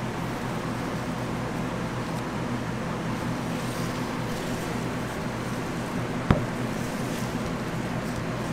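Steady mechanical hum and background noise, with one sharp click about six seconds in.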